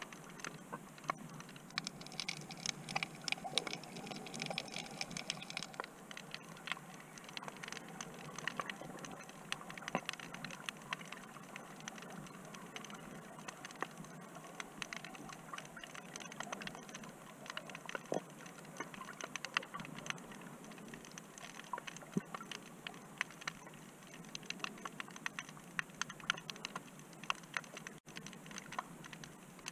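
Underwater crackle: many irregular sharp clicks, like typing, heard through a submerged camera, with a denser, brighter cluster a couple of seconds in.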